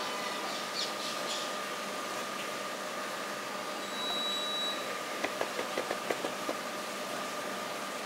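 Rose-ringed parakeet pecking and nibbling food on a concrete ledge: a quick run of light clicks, about six a second, in the middle, over a steady background hiss.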